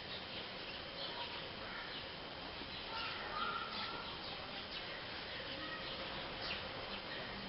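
Birds chirping in short, scattered calls over a steady background hiss, with a brief whistled call about three seconds in.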